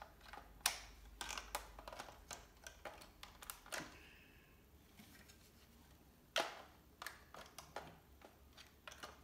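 Hard plastic clicks, taps and knocks of a Nerf toy blaster being handled and fiddled with, coming irregularly, with the loudest, sharpest knock about six seconds in.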